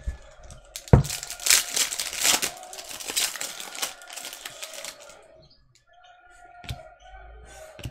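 A foil trading-card pack being torn open, its wrapper crinkling and crackling for about four seconds, then quieter handling of the cards with a few soft clicks.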